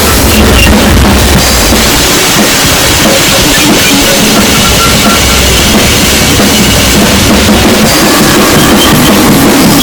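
Harsh noise music: a dense, heavily distorted wall of noise, very loud and unbroken, with thick low rumble and churning grit across the whole range.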